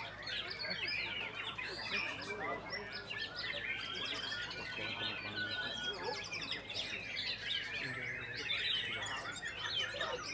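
White-rumped shama singing, a fast, unbroken run of chirps, whistles and trills, overlapping with other birds calling.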